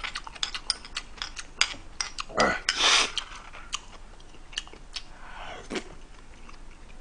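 Close-miked eating of kimchi stew: wet chewing and mouth clicks, with a spoon tapping a bowl. A longer slurp of broth comes about two and a half seconds in, and a fainter one near the end.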